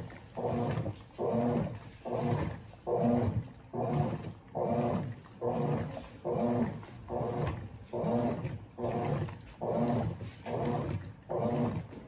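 Colormaq LCA12 top-loading washing machine agitating a load on its wash cycle. The motor hums in regular strokes, a little more than one a second, as the agitator swings back and forth through the sudsy water.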